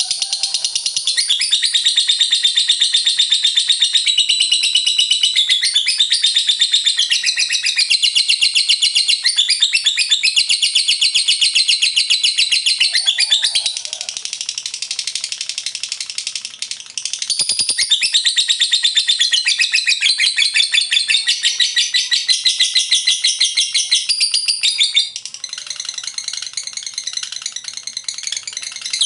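Lovebird singing its long 'ngekek' chatter: an unbroken, high-pitched rattling trill of very rapid notes. It drops quieter for a few seconds about 14 seconds in and again about 25 seconds in, with a brief knock at about 17 seconds.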